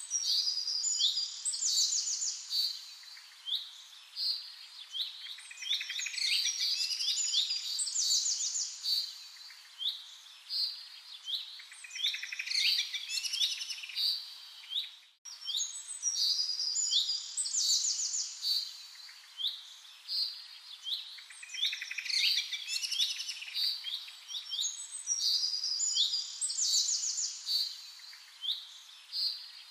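Birds singing and chirping in a dense, overlapping chorus of high-pitched trills and short calls. It breaks off for a moment about halfway through, then carries on.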